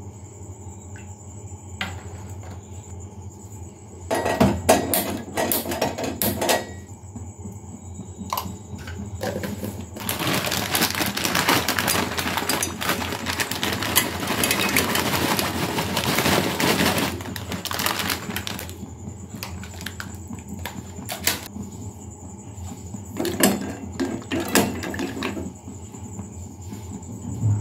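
Dry penne pasta poured from a plastic packet into a steel pot of water: a dense rustling noise lasting about eight seconds midway through. A few separate clicks and knocks come before and after it.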